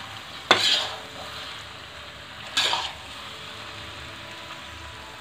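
Metal spoon stirring thick white sauce pasta in a steel kadhai: a sharp clink against the pan about half a second in and a short scrape at about two and a half seconds, over a soft steady sizzle.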